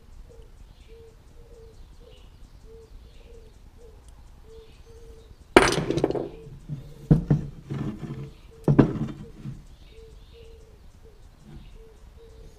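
Metal AK-type gun parts being handled and set down on a bench: a loud clatter about halfway through, then two sharp clanks a second or two apart.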